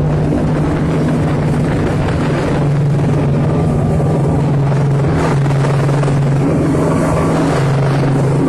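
Snowmobile engine running steadily at speed, its low drone shifting slightly in pitch now and then, over a constant rush of noise.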